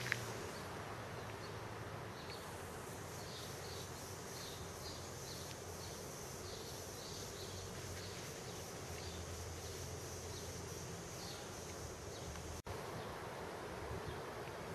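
Summer outdoor ambience: a steady high insect drone with short chirps repeating every fraction of a second, over a low steady hum. The sound drops out for an instant near the end.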